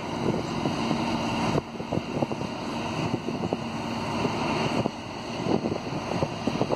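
Wind buffeting the microphone in uneven gusts, over a low steady hum from the MS Chi-Cheemaun car ferry as it moves past the quay.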